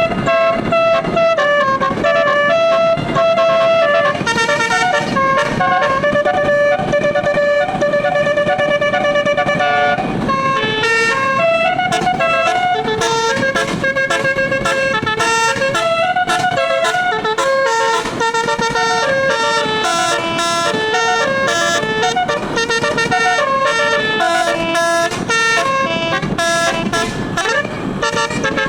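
Twelve-note telolet musical air horn on a Sumber Jaya tour bus playing a tune, its pitch stepping from note to note. The notes are held longer in the first ten seconds or so, then change more quickly.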